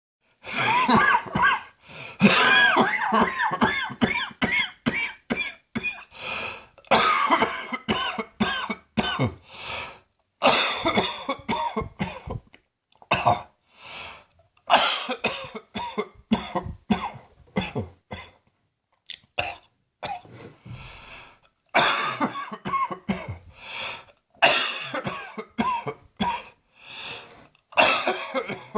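A person's persistent chest cough: repeated hacking coughing fits with gagging in between, coming in short loud bursts. The fits ease off briefly about two-thirds of the way through.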